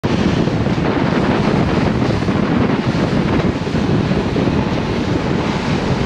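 Steady, loud wind buffeting the microphone over the rush of water along the hull and wake of a Grady-White fishing boat running at speed.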